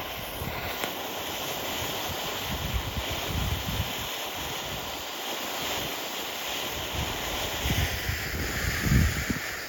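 Two fountain fireworks burning side by side with a steady spraying hiss. Wind buffets the microphone in low gusts, the strongest one near the end.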